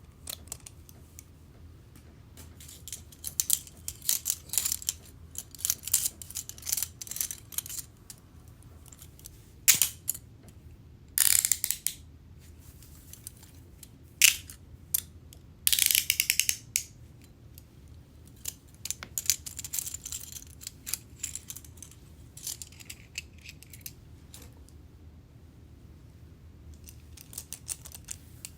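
Metal handcuffs ratcheting: runs of rapid clicking as the pawl skips over the teeth of the swinging cuff arm, in bursts with pauses between, plus a few single sharp clicks.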